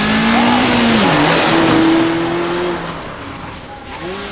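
Mazda Roadster (ND) four-cylinder engine accelerating hard as the car passes close by. Its pitch rises, dips about a second in, then holds steady. A rush of tyre and road noise peaks as it passes, and the sound fades as the car pulls away into the turn.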